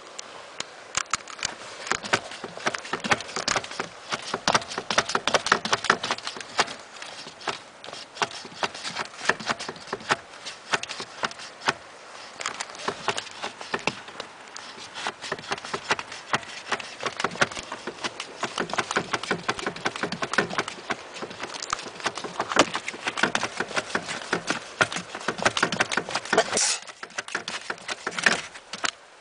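Flip-flops slapping and clicking against the feet and a car pedal as the pedal is pumped over and over, many sharp taps a second, with a short lull near the end.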